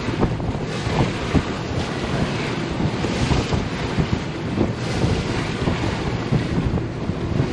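Wind buffeting the microphone in uneven gusts aboard a motor yacht underway, over the rush of water along the hull.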